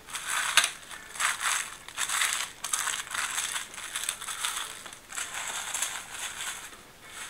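Empty foil trading-card pack wrappers being crumpled and swept up by hand: a run of irregular crinkling bursts that dies down near the end.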